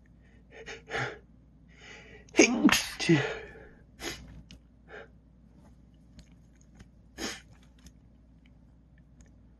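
A man sneezing: two loud sneezes close together about two and a half seconds in, after a few short breaths, followed by several short sharp breaths.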